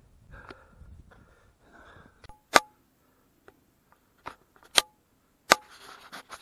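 A few sharp, separate clicks and knocks, the loudest about two and a half, four and three-quarter and five and a half seconds in.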